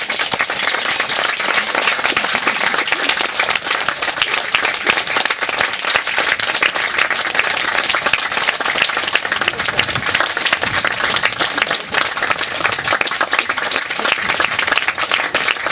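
Audience applauding: dense, steady clapping from many hands, kept up without a break.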